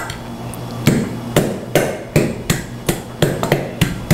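A wooden pestle pounding garlic cloves in a metal pot: about ten strikes at a quickening pace, each a sharp knock with a short ring from the pot.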